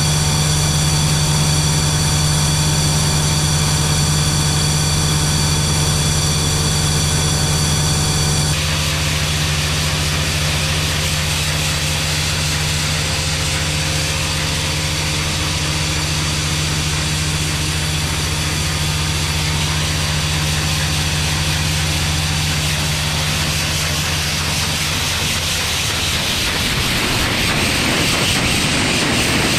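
Grain vacuum running, a steady machine drone with a high whine over it, moving soybeans. The tone changes abruptly about eight seconds in. Near the end the drone gives way to a rushing hiss of soybeans being sucked into the intake nozzle.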